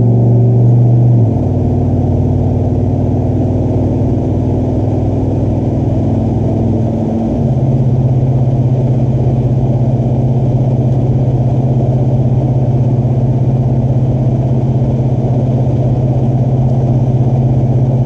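Cabin drone from a 2013 Ford F-150's 5.0 V8 through a Flowmaster exhaust with a 40 series muffler, heard inside the cab as the truck picks up to 75 mph. The low exhaust note shifts about a second in and again about seven seconds in, then settles into a steady, pulsating drone.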